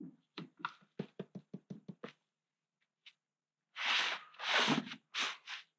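Wet concrete being worked into a plastic mold: about ten quick light knocks in the first two seconds, then four short scraping noises near the end.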